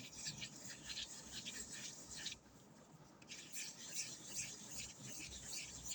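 Rapid, scratchy rubbing strokes, as in ASMR brushing or scratching triggers close to a microphone. They pause for about a second partway through, then start again.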